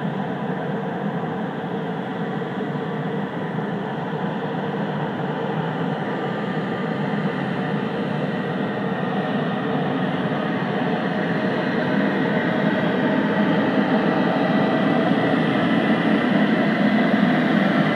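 Siemens Class 189 electric locomotive drawing an intermodal freight train out of the station, approaching and growing steadily louder. A faint whine rises in pitch in the second half.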